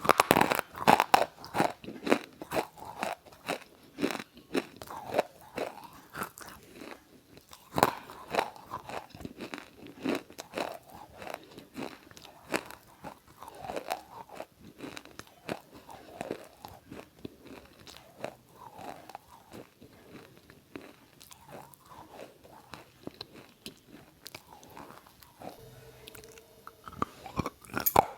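Close-up crunching and chewing: irregular crisp crunches and bites, louder in clusters, as something brittle is bitten and chewed.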